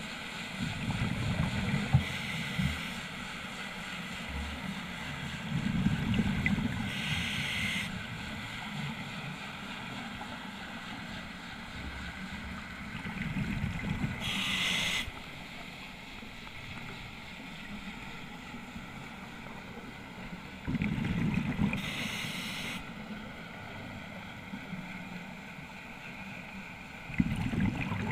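Scuba diver breathing on a regulator, heard underwater: about every seven seconds a low rush of exhaled bubbles, ending in a short high hiss from the regulator.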